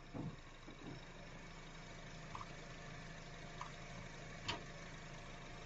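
Faint, steady car engine idling, with a few light taps and clicks over it.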